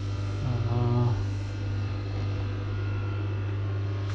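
Steady low machinery hum filling a boat's engine room, with a short murmur from a person about half a second in.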